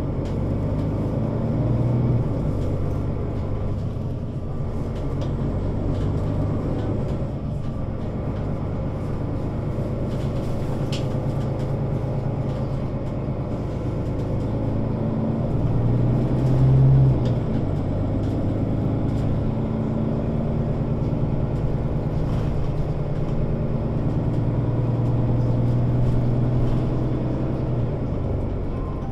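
Mercedes-Benz O 530 Citaro Facelift city bus under way, its diesel engine running steadily. The engine note rises and falls and grows louder a couple of seconds in, a little past halfway, and again near the end.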